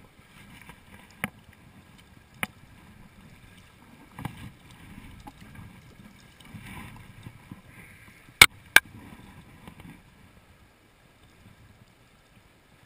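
Shallow stream water splashing and sloshing as a small trout is grabbed by hand, with scattered sharp clicks and two loud clicks close together about eight and a half seconds in. The sound drops away to a faint background after about ten seconds.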